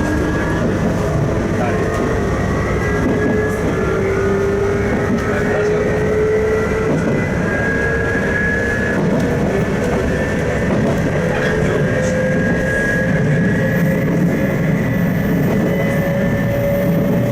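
JR East 719 series electric train accelerating, its thyristor-controlled commutator traction motors and gearing giving a jet-like whine that climbs steadily in pitch over a heavy running rumble. The whine is an abnormal noise of this ageing unit.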